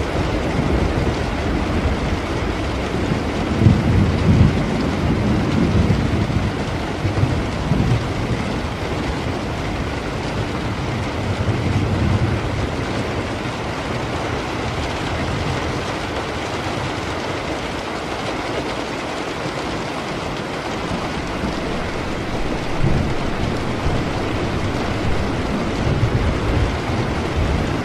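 Steady rain with distant thunder rumbling low several times, the heaviest roll about four seconds in.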